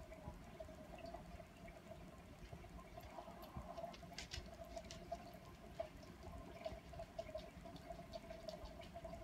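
Faint aquarium filter running, its water trickling steadily with light scattered drips and ticks.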